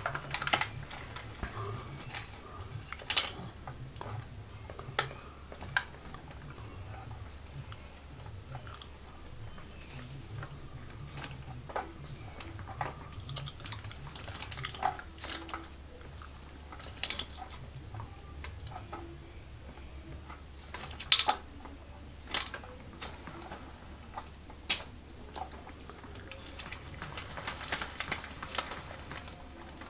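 Plastic clicking and knocking from a pneumatic Lego Technic garbage truck's rear compactor at work, as the packer sweeps scraps of foil and paper into the body. Irregular sharp clicks over a low hum, with brief hissing about a third of the way in and again near the end.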